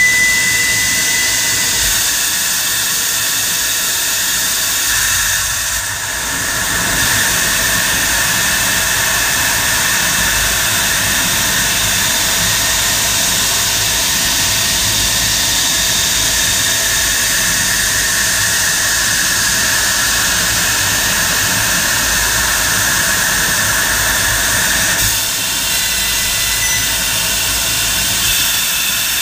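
eX-F80 Plus 8 kW fiber laser cutting 25 mm aluminium plate: a loud, steady hiss of high-pressure nitrogen assist gas blasting through the cut. It dips briefly about six seconds in and again near the end.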